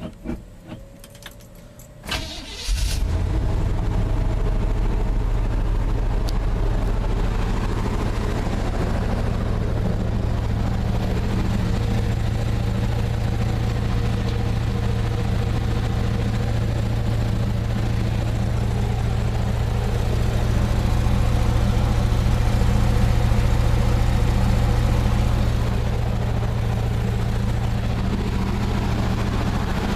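Chevy 350 small-block V8 cranked briefly and catching about three seconds in, then idling steadily, a little louder for a few seconds about twenty seconds in. The engine has a nagging misfire that the owner is trying to diagnose; he has found the plugs clean with no fouling.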